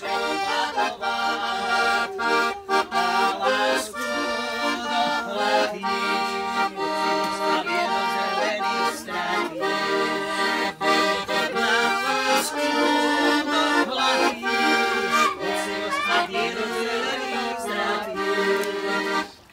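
Piano accordion playing a traditional-style tune. Melody notes and chords run over a steady bass, with brief breaks between phrases, and the playing stops at the very end.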